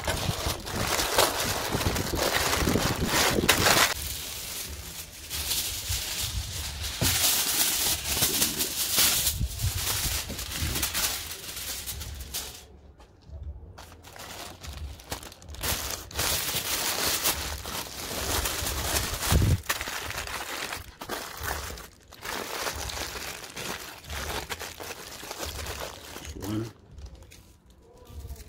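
Baking paper and then aluminium foil being folded, crinkled and crumpled by hand around a food parcel: irregular rustling and crackling that comes and goes, with brief quiet gaps.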